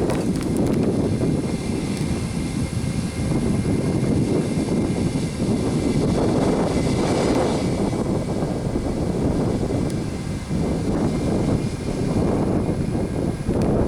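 Airbus A320-232's IAE V2500 jet engines running, heard from inside the passenger cabin as a loud, steady rumble with a faint high whine.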